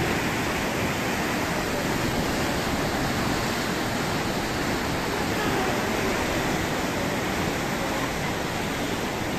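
Muddy floodwater surging through a hill-torrent drain swollen by heavy rain: a steady, loud rush of churning water.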